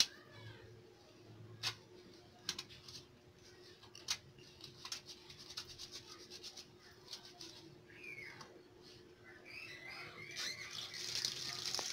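Faint wet rubbing of soapy hands, with scattered small clicks. Near the end a tap is turned on and water starts running, a hiss that grows louder.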